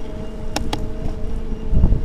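Ancheer e-bike's hub motor whining steadily over wind rush and road rumble while riding. There are two sharp clicks about half a second in, and a surge of low rumble near the end.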